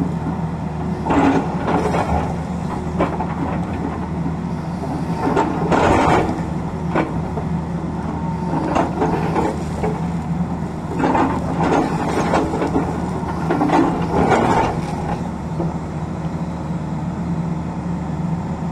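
Tata Hitachi hydraulic excavator with its diesel engine running steadily, and several short bursts of scraping and clattering as the bucket digs into the rocky slope and drops soil and stones.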